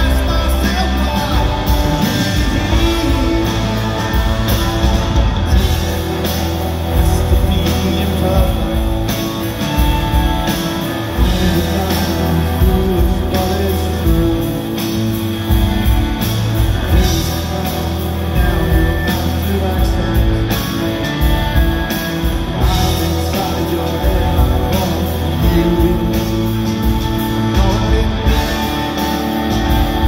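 Live rock band: electric guitars, bass and drums with a male lead vocal, playing a mid-tempo song.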